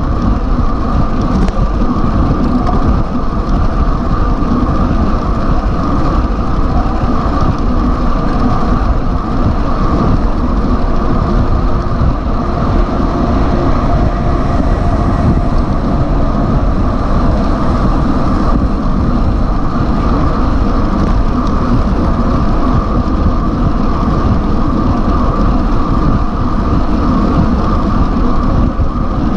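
Steady, loud wind rush on a microphone moving with a road bike at about 50 km/h, mixed with tyre and traffic rumble; a container truck passes alongside partway through.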